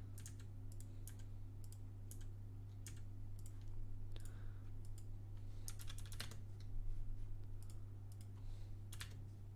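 Computer keyboard keys and a mouse clicking at irregular intervals, with a quick run of clicks about six seconds in and another near the end. A steady low hum runs underneath.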